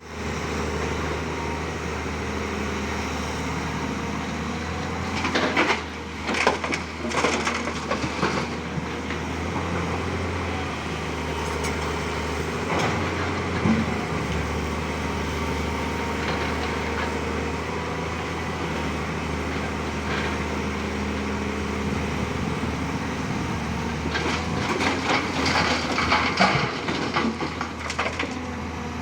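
Excavator diesel engine running steadily, with two spells of crunching and cracking as rock is broken and scraped, one around six seconds in and another near the end.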